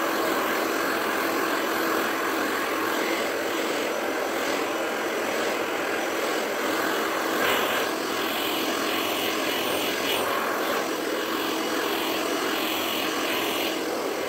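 Handheld hair dryer with a concentrator nozzle running steadily, blowing air with a constant motor hum.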